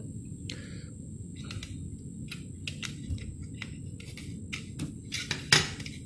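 Scattered light clicks and taps of a TV remote's plastic casing and circuit board being handled, with one louder click about five and a half seconds in.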